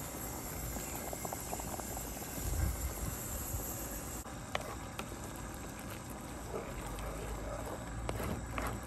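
Tomato-onion masala gravy sizzling and simmering in a frying pan on a gas burner, a little water just added, as it is stirred with a wooden spatula. A few light clicks of the spatula against the pan come in the second half.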